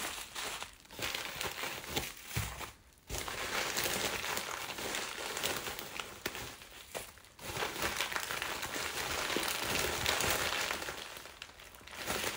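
Packaging crinkling and rustling as a mail-order box is unpacked, in two long stretches with a few short knocks between them.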